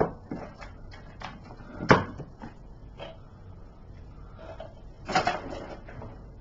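Handling noises: scattered light clicks and knocks, the loudest a sharp knock about two seconds in, and a short scraping rustle a little after five seconds.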